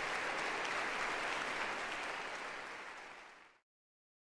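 Audience applauding, fading out near the end and then cutting off abruptly.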